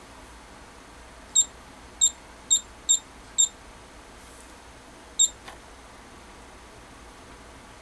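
Key-press beeps from a JEC total station's keypad: six short, identical high beeps, five in quick succession about a second in and one more a little after five seconds, with a faint click just after the last.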